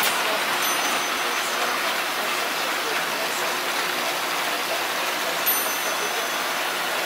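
Steady whirring and rattling of toy trains and motorized layout accessories running on a large model railroad layout.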